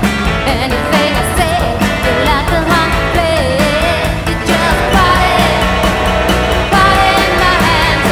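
Background music: a song with a singing voice carrying a wavering melody over a full band accompaniment.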